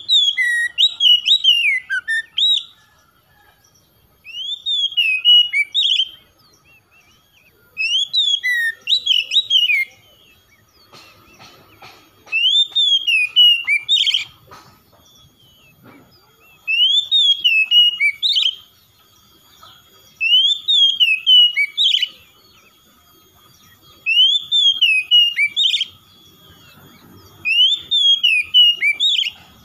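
Oriental magpie-robin singing: eight phrases of quick, sliding whistled notes, each about two seconds long, roughly every four seconds, with short pauses between them.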